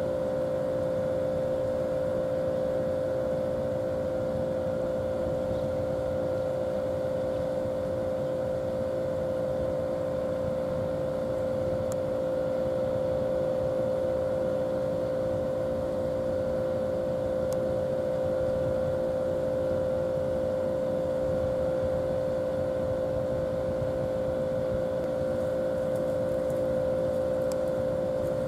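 Steady machine hum, one strong mid-pitched tone over a few lower ones, unchanging throughout.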